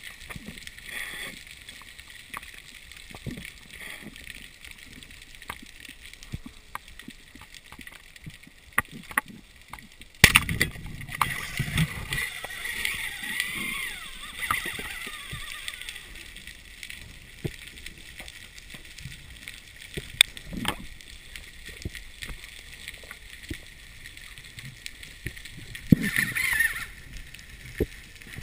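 Underwater reef ambience: a steady high hiss full of scattered sharp clicks and crackle, the kind made by snapping shrimp on a reef. About ten seconds in, a sudden louder rush of noise comes in and fades over a few seconds, and a shorter loud patch comes near the end.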